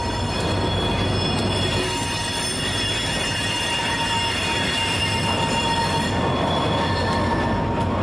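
Wheeling & Lake Erie freight train rolling with a steady rumble and a continuous high-pitched squeal of its wheels against the rail.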